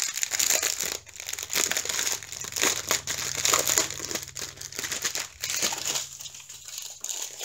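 Clear plastic packaging, a bag of diamond-painting drill strips, crinkling and rustling as it is handled, in irregular crackly bursts.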